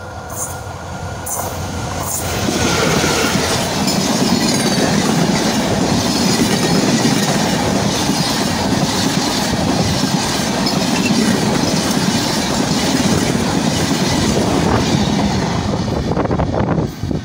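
Diesel-hauled intercity express train passing close by, its wheels clattering on the rails. It grows loud about two seconds in as the locomotive and coaches reach the track beside the camera, holds steady as the long rake of coaches runs past, and cuts off abruptly near the end.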